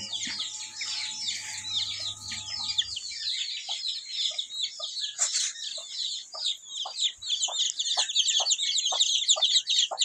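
A hen with chicks clucking in a steady rhythm, about two to three clucks a second, starting a few seconds in, over constant high-pitched chirping and peeping.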